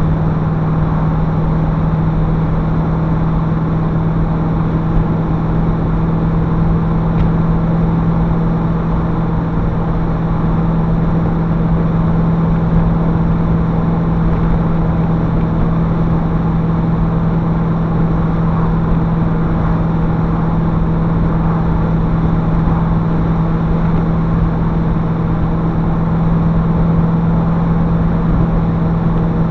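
TVR V8S's V8 engine running at a steady cruise with tyre and road noise, heard from inside the car: an even drone that holds one pitch, with no revving or gear changes.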